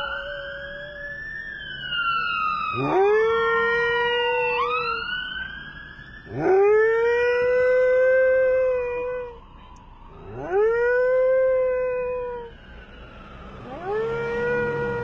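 Akita Inu howling: four long howls, each rising quickly and then held for about two seconds. A higher wail falls slowly in pitch over the first few seconds, before the first howl.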